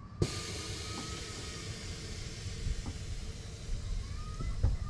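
Air ride suspension dumping air to lower the car: a sharp click as the valve opens about a quarter second in, then a steady hiss of escaping air from the airbags, with a few small knocks near the end.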